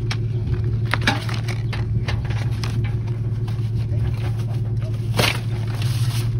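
Scraping and knocking of a phone being handled against a vehicle's window frame, over a steady low hum, with sharp knocks about a second in and again past five seconds.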